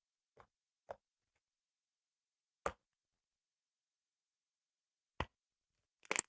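Glitter slime being handled, making isolated short clicks and pops with dead silence between them: two soft ones in the first second, sharper single ones at about three and five seconds, and a quick cluster of two or three near the end.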